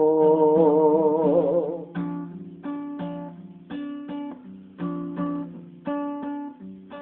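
Song with guitar accompaniment: a sung note held with vibrato fades out about two seconds in, then the guitar plays single strummed chords about once a second, each ringing and dying away.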